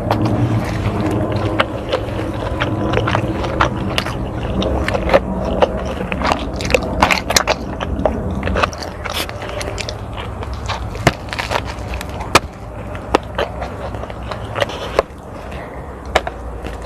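Close-miked eating: crunchy bites and chewing, full of sharp crackles and snaps over a low rumble.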